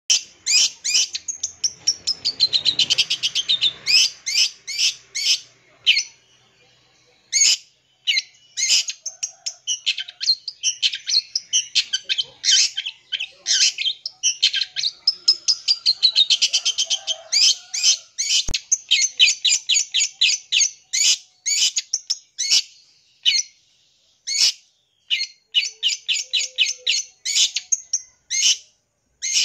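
Long-tailed shrike (cendet) singing a fast, loud song of sharp repeated chattering notes and trills, full of mimicked calls of other birds, with a couple of whistled downward sweeps. It breaks off briefly about six seconds in.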